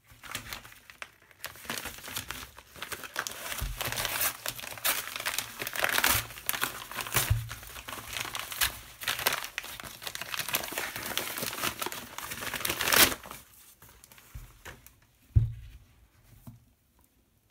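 Padded kraft-paper mailer being torn open and crinkled by hand: a dense run of rustling and tearing that stops about thirteen seconds in. It is followed by quieter handling with a single thump near the end.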